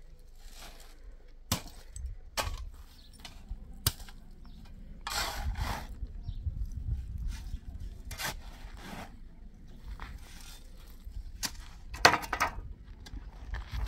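Shovel digging into dry soil and dumping it into a wheelbarrow: a series of sharp clanks and scrapes of the blade, with a longer scrape of dirt about five seconds in and the loudest clank about twelve seconds in.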